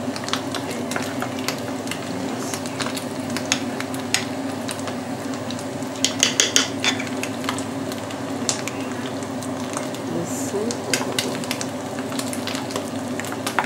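Soft boiled potatoes being mashed into a purée in a glazed bowl with a hand-held metal utensil: repeated squashing with light clicks and scrapes against the bowl, and a quick run of taps about six seconds in, over a steady low hum.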